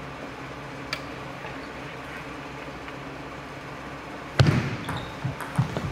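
Table tennis ball clicking once over a hushed hall, then about four seconds in a sudden loud burst of crowd voices and clapping as the point ends.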